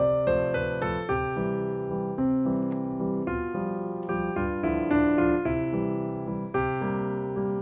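Background music: a piano melody.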